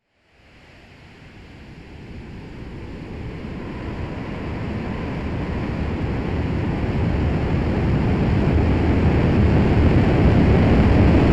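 Rocket engine ignition sound effect: a deep, noisy rush that starts from silence and grows steadily louder throughout.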